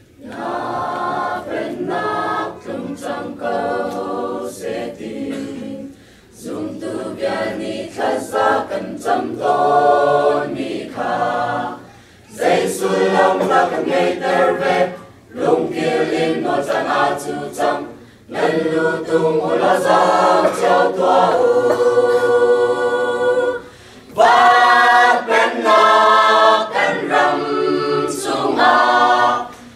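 Mixed choir of young men and women singing unaccompanied, in phrases with short breath breaks between them. It starts right at the beginning and grows louder in the later phrases.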